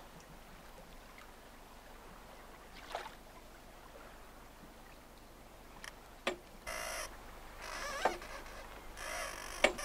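Small sailing boat ghosting along under sail: faint water sounds against the hull, with a few sharp knocks and creaks from the boat and its fittings and two short bursts of rustling noise in the second half.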